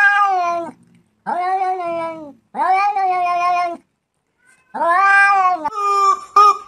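A cat meowing: three long, drawn-out meows, then another long call about five seconds in. Near the end, a rubber chicken squeak toy squeezed in a few quick, short squeaks.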